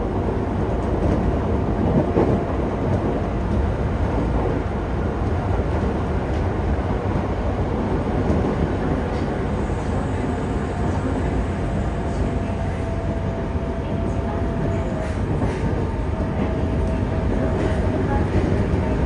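Yokohama Municipal Subway 3000A train with Mitsubishi GTO-VVVF control, heard inside the passenger car while running: a steady rumble of wheels on rail, with a faint steady tone in the second half. Near the end the train enters a tunnel and the noise grows a little louder.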